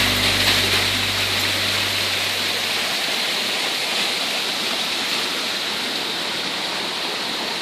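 Small waterfall at low flow, water trickling and splashing over rock ledges into pools: a steady rush. Background music fades out in the first two to three seconds.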